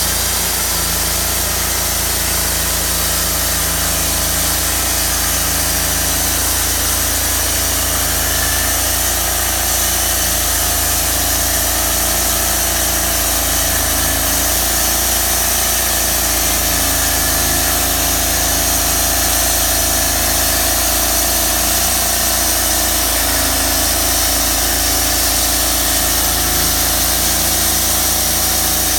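Sawmill sawing a large ash log: the engine runs steadily under the noise of the blade cutting, with a steady whine throughout.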